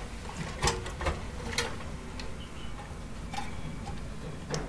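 Plastic connectors and cables clicking and rattling as a Molex-to-SATA power adapter is handled and pushed onto a hard disk inside a desktop PC case. About six sharp, irregular clicks over a low steady hum.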